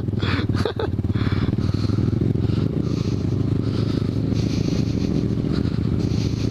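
Motorcycle engine running steadily while riding a muddy dirt trail, a low continuous drone with a rushing noise over it.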